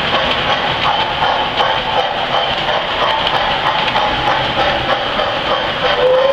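Lionel 390E standard gauge tinplate locomotive pulling a string of tinplate freight cars around three-rail track: a steady running rumble with the rapid clatter of metal wheels on the rails. Just before the end a train whistle begins to sound, rising slightly in pitch and then holding.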